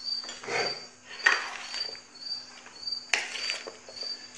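A spoon stirring a creamy chopped salad in a ceramic plate, scraping and clinking against the plate in three strokes, the sharpest about a second in and near three seconds. A cricket chirps steadily behind it, about three chirps a second, over a faint low hum.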